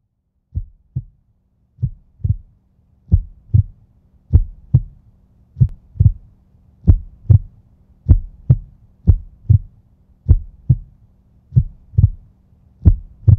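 Heartbeat sound effect: slow paired lub-dub thumps, about one pair every second and a quarter, growing louder over the first few seconds, over a faint steady low hum.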